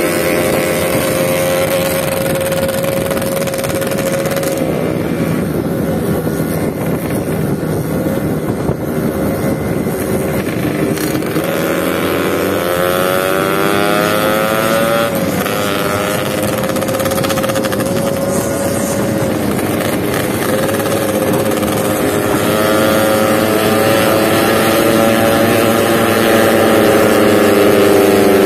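Yamaha RX King two-stroke motorcycle engine under way, heard from the bike itself. Its pitch rises and falls with throttle and gear changes, with a sharp drop about fifteen seconds in and another near the end.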